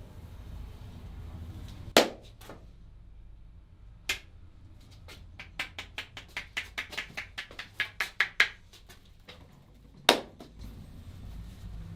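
A barber's hands striking a head during a head massage. A loud slap comes about two seconds in and a lighter one a couple of seconds later. Then a quick run of about five taps a second builds up over three seconds, and another loud slap comes near the end.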